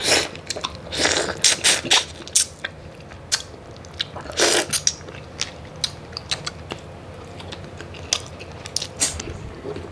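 Close-miked eating of a cooked, sauce-covered tiger prawn head by hand: a quick run of bites, sucks and shell crunches in the first two and a half seconds, a longer one about four and a half seconds in, then scattered small clicks and smacks.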